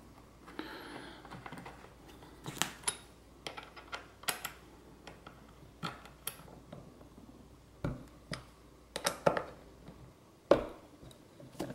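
About a dozen light metallic clicks and taps, irregularly spaced, as a 6 mm Allen key works the bolts holding a bracket to a bucket seat's metal frame.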